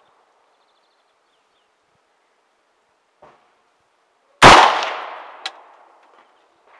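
A single close rifle shot from a scoped 5.56 NATO rifle, about four seconds in, its report echoing and dying away over about a second and a half. A sharp metallic tick follows about a second after the shot.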